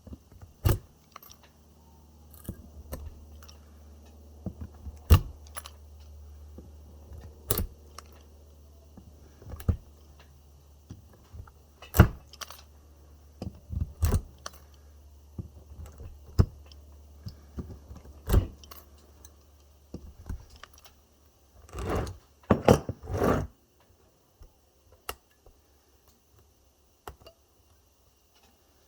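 Pliers gripping and prying metal connector strips off e-bike battery cells: scattered sharp metallic clicks and clinks, with a short run of scraping and tearing near the end as a strip that is stuck to the cells is worked loose.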